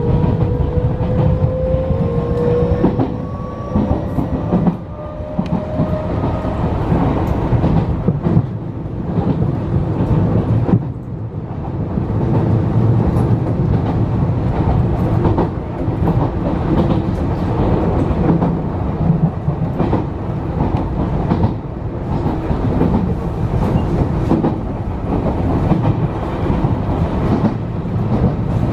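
Enshu Railway 2000 series electric train running, heard from just behind the cab's front window. A whine rises in pitch over the first few seconds as the train gathers speed, then gives way to a steady rumble of wheels on rail with repeated clicks from the rail joints.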